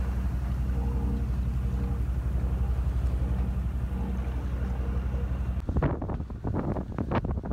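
A sailboat's engine drones at a steady, low pitch. About three-quarters of the way in, it gives way to gusty wind buffeting the microphone over rough, breaking sea.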